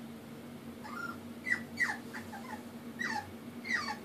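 French bulldog puppy whimpering: a run of short, high cries that each fall in pitch, starting about a second in. She is crying for help to climb the stairs.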